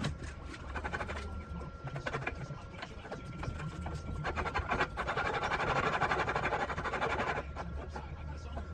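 A few scattered clicks and light knocks of metal, then a welding arc crackling steadily for about three seconds as a tack weld is laid on steel tubing.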